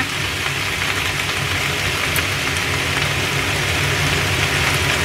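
Napa cabbage sizzling steadily in oil in a frying pan, stir-fried over low heat.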